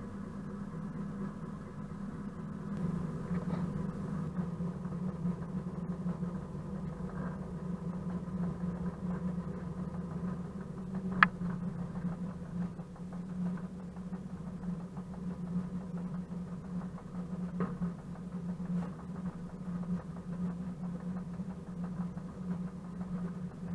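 Diesel engine of a ČD Cargo class 742 locomotive, a ČKD six-cylinder, running with a steady low drone, heard from the outside walkway beside the engine hood. It grows louder about three seconds in as the locomotive gets under way. One sharp click comes a little before halfway through.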